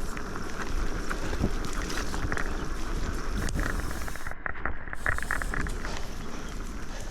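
Mountain bike riding down a rough dirt trail: wind rumbling on the handlebar-mounted camera's microphone over the rolling of the tyres, with frequent small knocks and rattles from the bike over the bumps.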